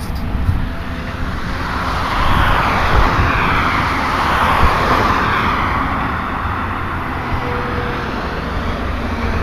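Road traffic noise: a steady low rumble, with a vehicle passing that swells over a few seconds and then fades, its pitch falling as it goes.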